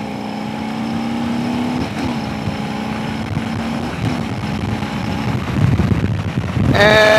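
Stock Milwaukee-Eight V-twin of a 2022 Harley-Davidson Road Glide Limited accelerating hard through the gears. Its pitch climbs in each gear and drops at upshifts about two and four seconds in, with wind rush building as speed rises. A short, loud, higher-pitched sound comes near the end.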